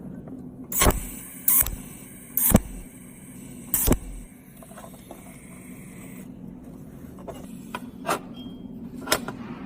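Four sharp knocks or clicks within the first four seconds, then two fainter ones near the end, over a steady low hum.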